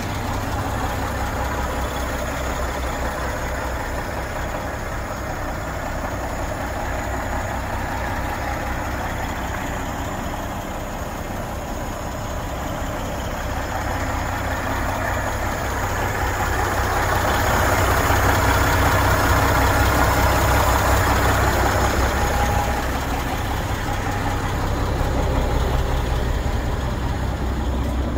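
MAN 9.168 truck's six-cylinder diesel engine idling steadily, growing louder for several seconds a little past the middle.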